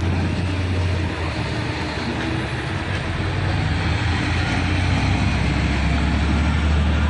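Heavy diesel mining machinery running steadily: a deep engine drone with broad mechanical noise over it, getting a little louder in the second half.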